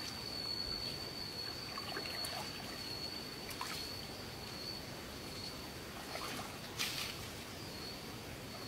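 Shallow muddy water trickling and splashing softly as someone shifts about while kneeling in it, with a louder splash about seven seconds in. A steady high-pitched whine runs underneath.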